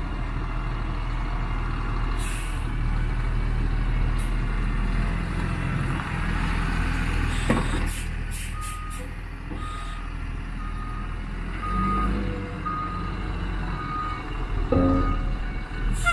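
Kalmar Ottawa yard truck's diesel engine running steadily as it drives, with a few short hisses of air a little past halfway. Then its backup alarm beeps about once a second, seven times, as it reverses.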